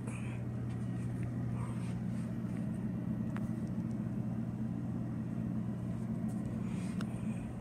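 A steady low mechanical hum that holds an even pitch, with a few faint clicks.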